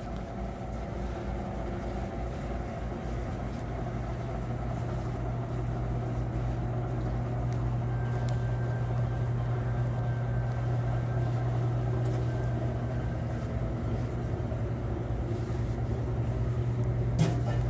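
Steady low machine hum that holds throughout and grows slightly louder, with a faint thin high tone briefly in the middle.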